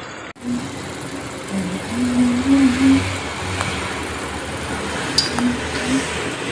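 Hot cooking oil sizzling steadily as fried sweet potato slices are lifted out of it with a perforated metal strainer, with a few faint low tones over it.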